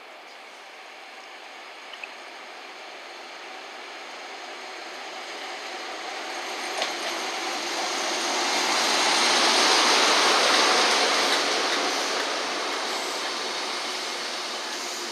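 A train passing at speed: the rumble and hiss of wheels on rail grows louder, peaks about ten seconds in, then fades away.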